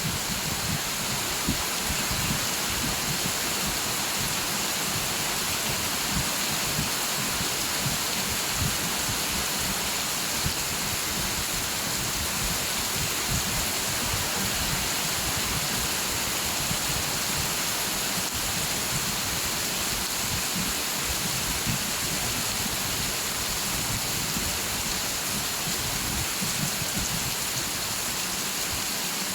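Steady rain falling, an even hiss with dense small patters of drops landing on a surface.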